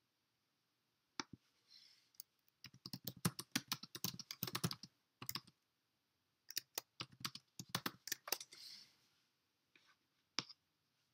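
Typing on a computer keyboard: two runs of quick keystrokes, with a few single clicks before and after.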